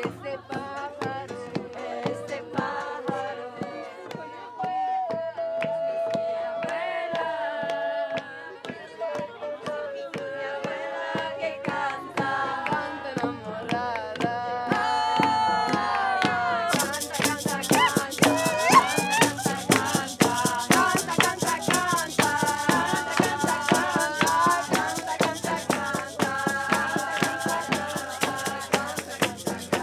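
Group singing a chant, accompanied by rawhide frame drums struck with beaters in a steady beat, a strummed acoustic guitar and hand clapping. A bright rattling joins about halfway through.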